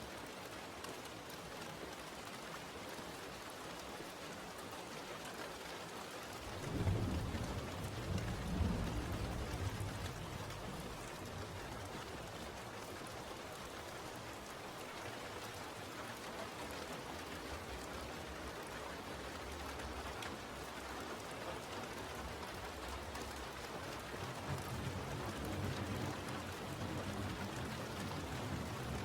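Steady rain falling, with a roll of thunder rumbling in about a quarter of the way through and fading a few seconds later, and a fainter rumble of thunder near the end.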